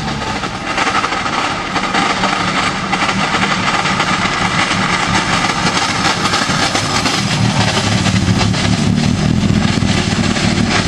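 Rally car engine running hard, loud and sustained, with a dense rasping edge and a steady low engine note that grows stronger in the second half.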